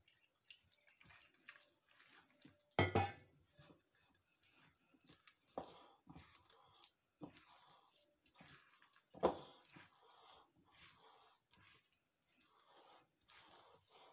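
Hands squeezing and working a wet, sticky flour-and-water dough in a glass bowl: faint, irregular squelching and crackling, with two louder thumps about three seconds in and again about nine seconds in.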